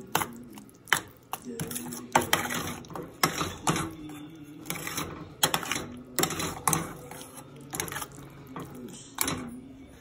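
Metal spoon stirring a thick eggplant mash in a stainless steel saucepan, clinking and scraping against the pan's sides and bottom about twice a second.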